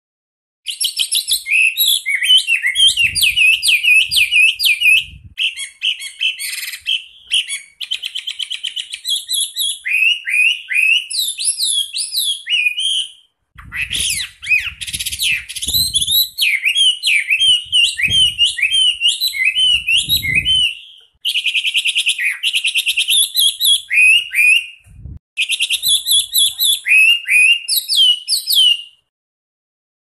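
Chinese hwamei singing: long runs of fast, tightly spaced repeated notes and rolling trills, delivered in several long bursts with short pauses between them.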